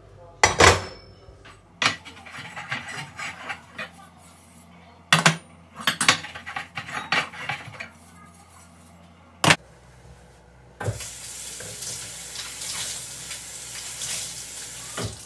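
Metal pan supports of a glass-top gas hob clattering and knocking as they are wiped and set back on the burners, with several sharp knocks. Near the end a kitchen tap comes on and water runs steadily.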